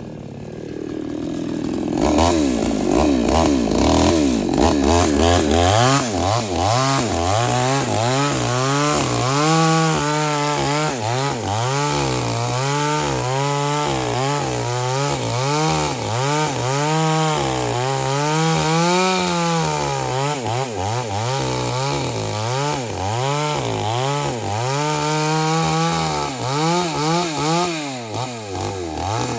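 JCK gasoline chainsaw with a 22-inch bar, its two-stroke engine running loudly. It picks up about two seconds in, then its speed rises and falls over and over, about once a second.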